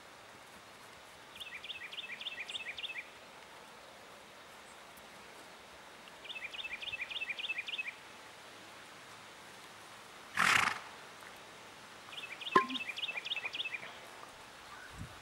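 A bird singing three short phrases, each a quick run of about eight falling notes, about five seconds apart, over faint outdoor background noise. About ten seconds in there is a brief loud rush of noise.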